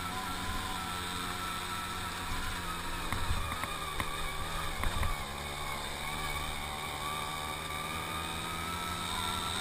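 Tomos APN 6 moped's small two-stroke single-cylinder engine running under way. Its pitch sags a little past the middle and then rises again, and a few knocks come from bumps a few seconds in.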